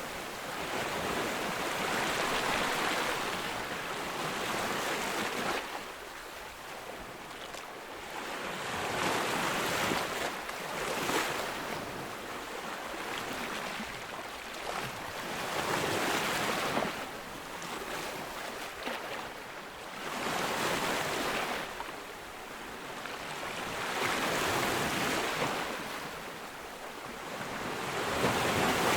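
Ocean waves breaking on a beach, each wave a swelling rush of surf that builds and fades, about every four to five seconds.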